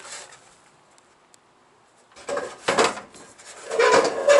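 Metal casing of a Suburban SF-30 RV furnace scraping against the sheet-metal wall opening as it is slid into place. Two brief scrapes come about two seconds in, then a longer, louder scrape with a slight metallic ring near the end.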